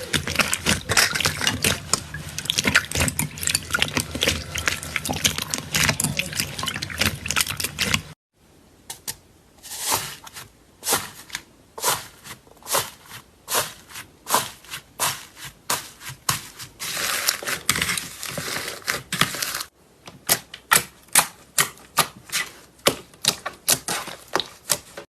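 Slime being squeezed and poked by hand, making sharp clicks and crackling pops. The clicks come densely at first, then as separate pops about one to two a second after a cut about eight seconds in.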